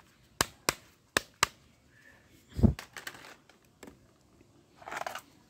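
Plastic toy pistol's trigger and hammer clicking sharply four times, in two quick pairs, followed by a heavier thump, then a short scrape near the end as toy guns are handled on the concrete floor.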